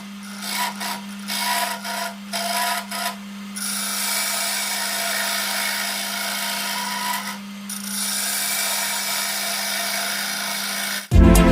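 Small homemade lathe running with a steady hum while a cutting tool scrapes the spinning wooden workpiece, the scraping broken by several short pauses in the first few seconds and once near the middle. Loud music cuts in at the very end.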